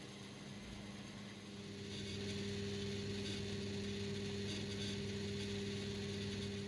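A small electric kitchen-appliance motor starts about a second and a half in and runs steadily with a whirring hum, over a fainter low hum that is there throughout; it stops at the end.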